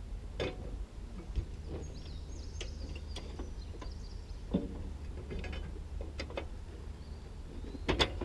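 Scattered sharp metal clinks and knocks from hands working on an old disc harrow, the loudest just before the end, over a low steady rumble.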